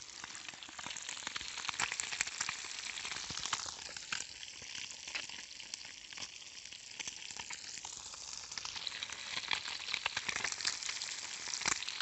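Lambari, small freshwater fish, frying in hot oil: a steady sizzle with many sharp crackles and pops throughout.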